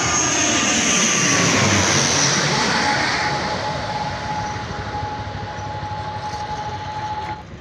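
Twin-turboprop airliner passing low overhead on landing approach: a loud engine and propeller roar with a whining tone that drops in pitch as it goes over, then fades away. The sound cuts off abruptly near the end.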